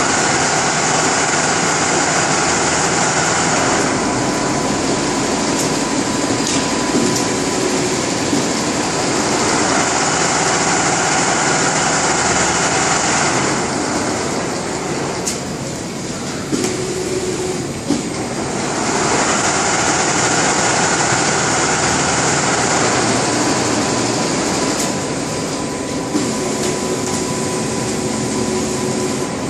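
Richpeace six-head automatic bridge-type sewing machine running, its heads stitching in a steady mechanical whir. It eases off for a few seconds a little past the middle, then picks up again.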